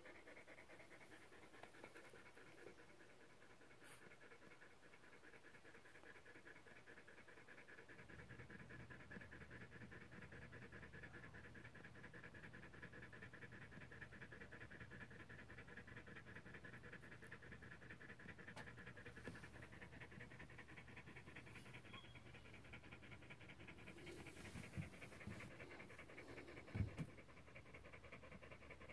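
A standard poodle in labour panting, quietly and rapidly, with a fast even rhythm throughout. A single soft thump near the end.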